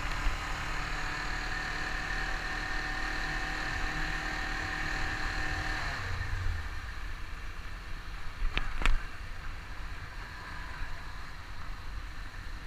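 Honda CBR500R parallel-twin engine running at a steady speed, its note dropping away about halfway through as the throttle closes. A little later come two sharp knocks a fraction of a second apart as the wheels cross a speed bump.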